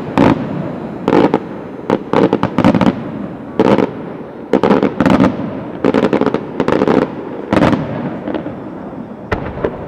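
Aerial firework shells bursting overhead in an irregular string of sharp bangs, with rumbling echo between them. The bangs come thick through most of the stretch and thin out and weaken toward the end.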